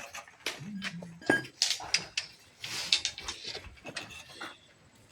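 Irregular metallic clinks, knocks and scraping of steel reinforcing bar being handled and bent by hand, with the loudest scrapes between about one and a half and three seconds in.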